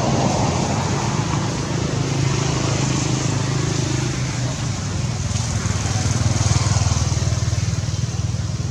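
A motor vehicle engine running steadily, getting a little louder about six to seven seconds in.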